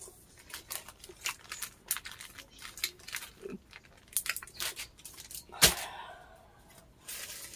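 Chewing a very hard Sour Punch candy close to the microphone: irregular clicking, crunching mouth sounds, with one louder click about three-quarters of the way in.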